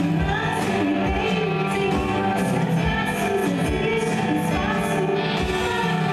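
A live worship band: a woman sings a Portuguese worship song over electric guitar, keyboard and a steady low beat.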